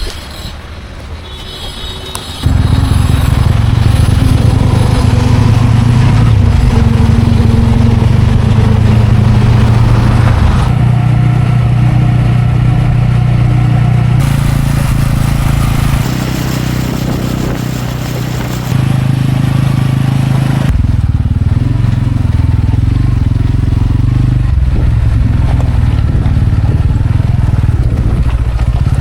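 Tractor diesel engine running loud and steady, pulling a cultivator. The sound is quieter for the first two and a half seconds, then jumps up, and the engine note shifts abruptly several times.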